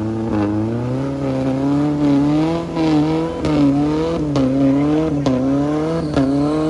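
Off-road 4x4's engine revving hard, its pitch rising and falling about once a second as the throttle is worked. A few short knocks are heard in the second half.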